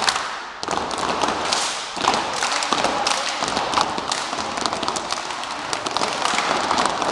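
Children's step team stomping and stepping on a hard floor: many quick stomps and slaps overlapping, not quite in unison.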